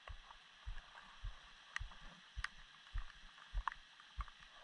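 Steady rain hiss with scattered sharp drips from the trees overhead. A soft low thump repeats about every 0.6 s underneath.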